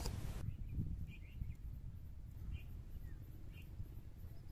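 Quiet outdoor pond-side ambience: a low background rumble with a few short, faint bird chirps scattered through it. A hiss from the subscribe-button sound effect cuts off about half a second in.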